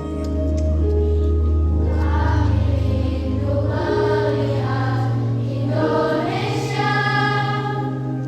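Children's choir singing in harmony over held low accompaniment notes, the voices growing fuller about two seconds in.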